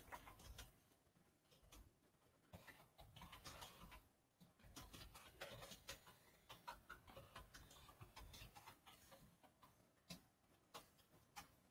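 Faint, irregular clicking of computer keyboard keys being typed, otherwise near silence.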